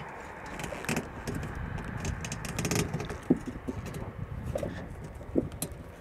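Hands working a bicycle tire on the velomobile's front wheel rim: scattered clicks, taps and rubbing of rubber against the rim and spokes, over a low rumble.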